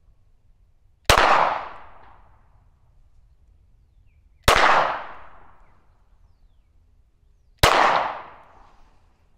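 Three single shots from a 9mm SIG P320 Spectre Comp compensated pistol, about three seconds apart, each sharp report trailing off over about a second. The pistol is being fired to break it in after repeated jams.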